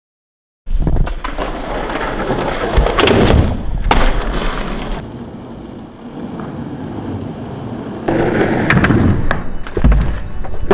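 After a moment of silence, skateboard wheels rolling on street asphalt, with sharp clacks of the board's tail popping and landing. The rolling dips quieter in the middle and comes back loud near the end with several hard clacks.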